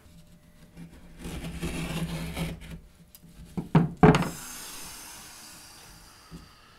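Harnds Beak folding knife slicing through thick denim with a rasping, rubbing sound, then two sharp knocks on the wooden table a little after three and a half seconds in, followed by a sound that fades away over about two seconds.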